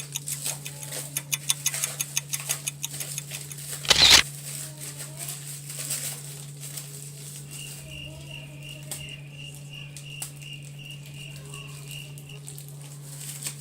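Hands handling plastic packaging: a quick run of small clicks and crinkles, then a short loud burst of crinkling about four seconds in. In the second half comes a faint row of evenly spaced high beeps, about three a second, over a steady low hum.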